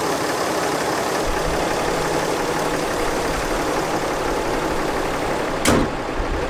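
Ram 3500's 6.7-litre Cummins diesel idling steadily, sounding normal with its exhaust manifold back on and no exhaust leak. Near the end the hood slams shut with one sharp bang.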